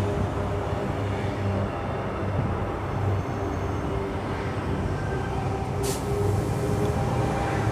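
Electric suburban train standing at the platform, its equipment giving a steady low hum over background noise, with a brief sharp noise about six seconds in.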